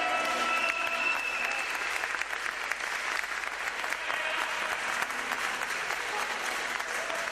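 Audience applauding, a steady patter of many hand claps.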